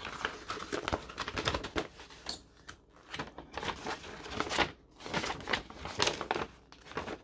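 A folded paper instruction manual rustling and crackling as it is unfolded by hand, a run of irregular crinkles.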